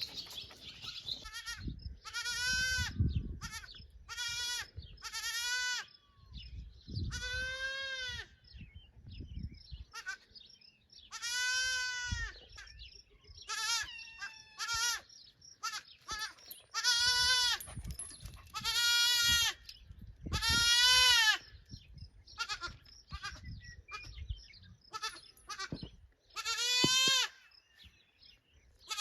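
Young Boer goat kid bleating again and again: about a dozen high, quavering calls, some short and some drawn out to over a second, with gaps of a second or more between them.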